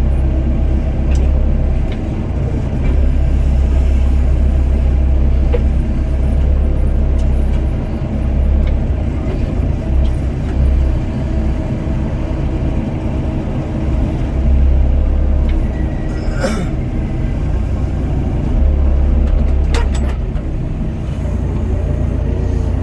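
Doosan DX55 mini excavator's diesel engine running, its low rumble swelling and easing repeatedly as the machine works. There are a couple of brief sharp clanks near the end.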